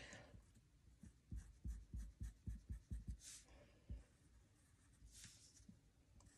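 Faint pencil strokes on paper: a quick run of short scratching strokes in the first few seconds, then a longer stroke or two near the end.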